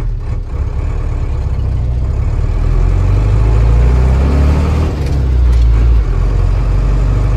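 Mercedes-Benz 912 truck's turbocharged OM 364 four-cylinder diesel pulling under load, heard from inside the cab, with turbo boost building. The engine note rises and grows louder about two to three seconds in, with two brief dips near the end.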